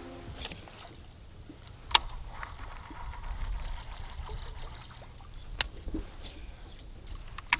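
Water lapping and a low wind rumble on the microphone in a small boat on a creek, broken by three sharp clicks a few seconds apart, the loudest about two seconds in.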